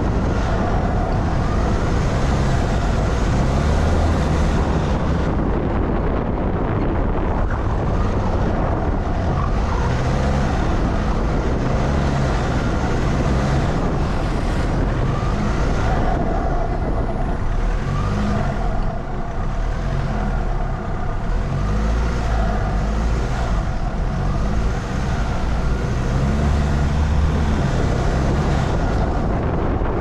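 Vehicle driving along, engine running with its note rising and falling, over a heavy low rumble.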